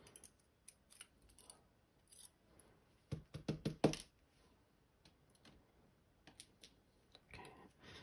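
Light metallic clicks and taps of steel tweezers and small lock parts while a pin-tumbler lock cylinder is taken apart, with a quick run of louder knocks a little after three seconds in.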